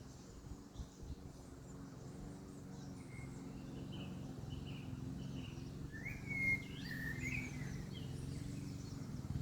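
Short chirping bird calls, loudest a little past the middle, over a low steady hum that slowly grows louder. A few faint knocks come in the first second.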